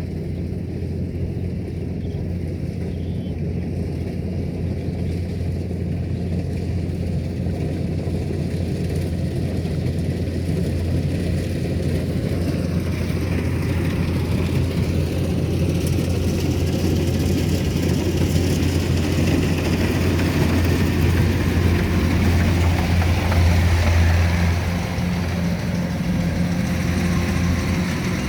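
Rice combine harvester's engine running with a steady low hum, growing louder and picking up more hiss from about halfway through, loudest a few seconds before the end.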